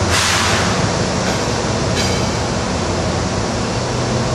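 GE ET44AC diesel-electric freight locomotives passing slowly, their V12 diesel engines running with a steady low drone. A brief hiss near the start, and a faint click about two seconds in.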